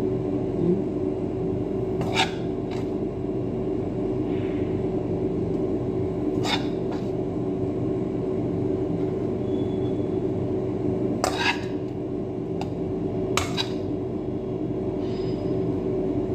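Steady machine hum of kitchen equipment, with a handful of short clinks and scrapes of a utensil against the pan as cooked chicken is scooped into flatbread.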